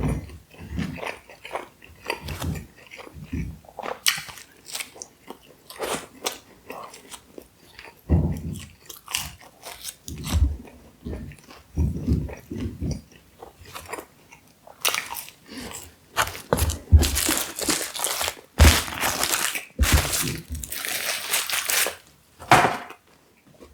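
Close-miked chewing and biting of pizza: a steady run of wet mouth sounds and small crunches. Between about fifteen and twenty-two seconds in there is a stretch of louder, hissier crunching noise.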